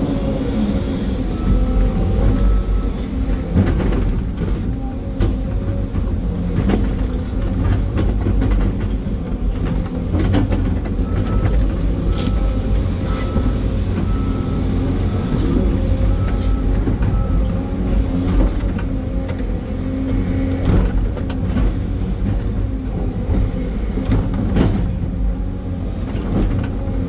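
Sany SY385 hydraulic excavator heard from inside its cab: the diesel engine runs steadily under working load while the boom and bucket dig, with repeated knocks and clunks of the bucket in soil and rock. A repeated beeping comes in about a second in and again for several seconds in the middle.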